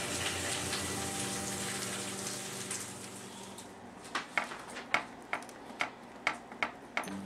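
Bacon sizzling in a hot cast-iron skillet, a steady hiss that falls away about halfway through. Then a butter knife scrapes and taps as it spreads butter on bread slices on a foil-lined sheet pan, in short sharp strokes about two a second.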